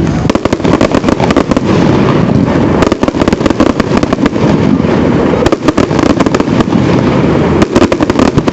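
Fireworks display: loud, continuous crackling with many rapid bangs in close succession.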